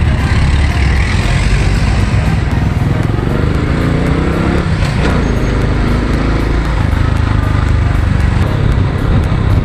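Honda Wave 125i single-cylinder motorcycle engine running steadily under way, with heavy wind rumble on the microphone. About five seconds in another vehicle's engine swells and drops in pitch as it passes close.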